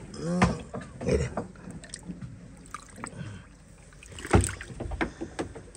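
Hands working through freshly caught sierra mackerel in a tub of water: splashing and wet fish shifting, with one loud thump about four seconds in.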